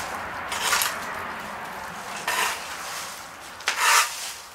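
Broom sweeping a patio: a few short, scratchy strokes of the bristles across the paving.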